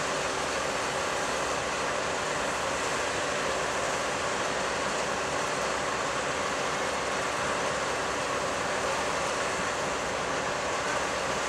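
Steady engine noise of track-repair machinery running without a break, with a faint steady hum.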